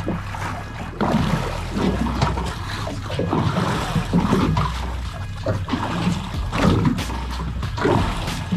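Water sloshing and splashing against the side of a small fishing boat in choppy swell, with background music and its low bass notes underneath.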